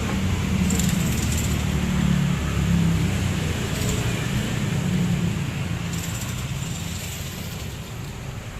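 Yamaha RX-King's two-stroke single-cylinder engine running, easing off over the last few seconds.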